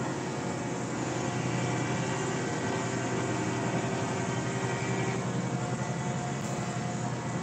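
Lifted pickup truck's engine idling steadily close by, a low even drone; a higher tone in it drops out about five seconds in.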